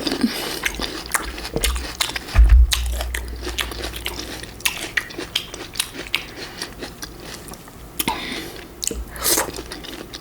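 Close-miked biting and chewing of fresh fruit: many short, wet crunches and mouth clicks. A low thump about two and a half seconds in is the loudest moment.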